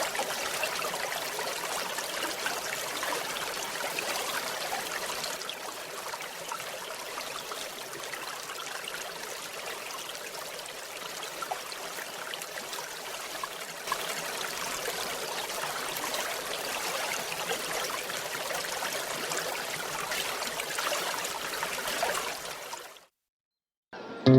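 Flowing stream or river water running steadily over stones, fading out near the end.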